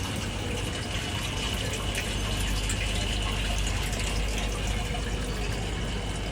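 Flowing water rushing steadily, with a deep rumble underneath and a faint steady high-pitched tone above it.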